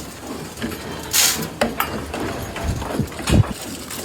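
Boer goats moving about in their pen: scattered hoof knocks and scuffles, a short hissing burst about a second in, and two deeper thumps near the end.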